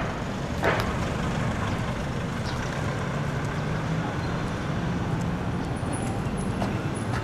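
Street traffic: the steady drone of motor vehicle engines and road noise.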